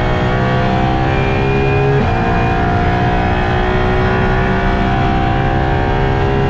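Apollo Intensa Emozione's 6.3-litre naturally aspirated V12 pulling hard under acceleration. Its note climbs steadily in third gear, then a quick upshift to fourth about two seconds in drops the pitch, and it climbs again.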